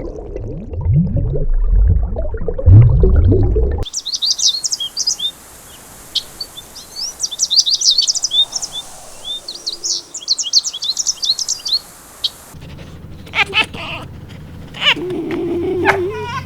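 Small birds chirping, a dense run of quick high-pitched calls lasting about eight seconds. Before it comes a stretch of low, gliding sounds, and after it a different kind of call with a held, wavering tone near the end.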